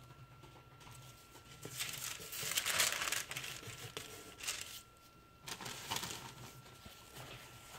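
Paper crinkling and rustling as it is handled, in a few bursts, the loudest about two to three seconds in.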